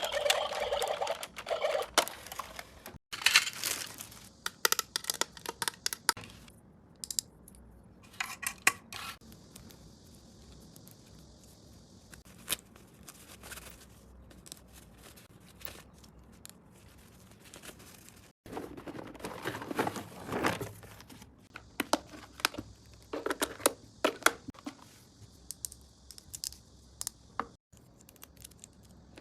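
Toy packaging being handled and opened: bouts of crinkling and rustling with small clicks and taps, busiest near the start and again past the middle, with quieter stretches of scattered ticks between.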